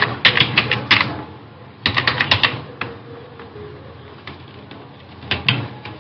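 Computer keyboard typing: quick runs of keystrokes as an email address is entered, in three bursts, at the start, about two seconds in and near the end, with pauses between.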